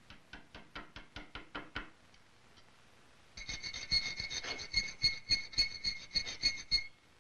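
A chisel or gouge being struck into the wooden rifle stock at the trigger inlet, about ten quick light taps in the first two seconds. Then, from about three seconds in, hand-tool work on the small metal trigger: rhythmic metal-on-metal strokes, about four a second, with a steady high ring.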